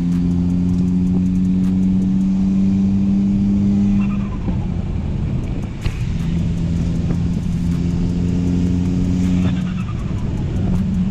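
A tuned Ford Fiesta ST's turbocharged 1.6-litre four-cylinder pulls hard under acceleration, its note climbing slowly. It lets off about four seconds in, pulls again from about six seconds, and lets off again near the end.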